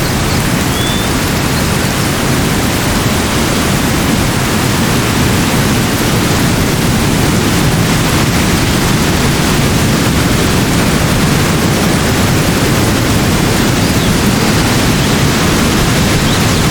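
Steady rushing of water, an even loud hiss with a heavy low rumble that never changes. A faint short chirp sounds about a second in.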